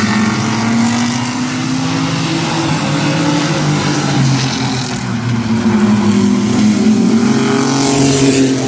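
Mini trucks racing on a short oval track: several engines running at once, their pitch rising and falling as they circle. The engine note climbs, with a louder pass near the end.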